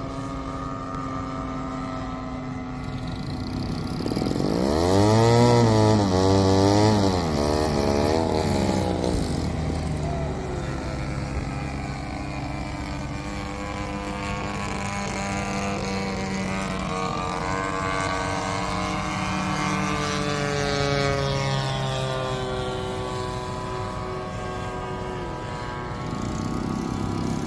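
Engines of several giant-scale radio-controlled model airplanes droning overhead. One plane passes close about five seconds in, the loudest stretch, its pitch wavering up and down. Later, another engine's tone slides slowly downward.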